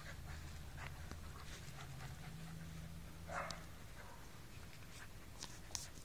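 Doodle puppies at play: faint panting and scuffling, with one short louder noisy burst a little over three seconds in and a few small clicks near the end, over a steady low hum.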